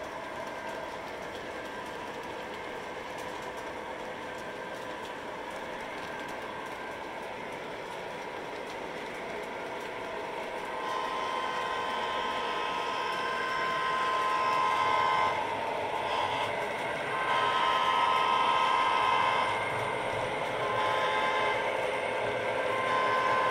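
Model train locomotives rolling along the track with a steady running hum. About eleven seconds in, a diesel locomotive's horn sound from the model's sound system blows several blasts, some long and some short.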